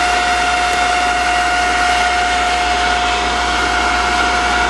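Waste-vegetable-oil centrifuge spinning at full speed, a steady high whine over an even rushing noise as it cleans the oil.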